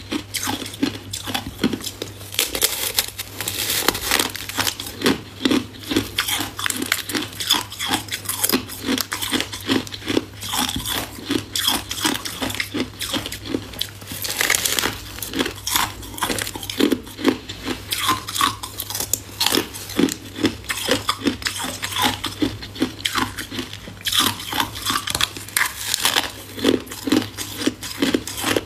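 Close-up crunching of a person biting into and chewing a long moulded cylinder of ice, a fast run of many crunches a second with no pause.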